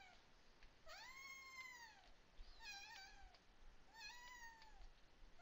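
Faint, repeated cat meows: three drawn-out calls, each rising and then falling in pitch, the first the longest.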